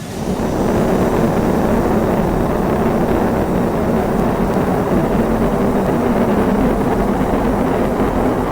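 Rocket engines at launch: a loud, steady, deep rumble that swells up within the first second and then holds.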